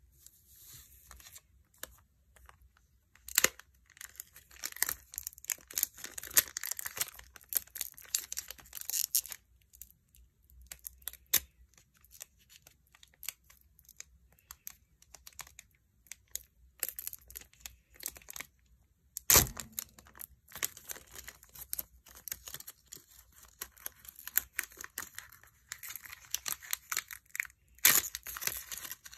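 Foil-lined trading-card pack wrappers crinkling and being torn open by hand, in irregular crackles and rustles, with a few sharper knocks, the loudest about two-thirds of the way through.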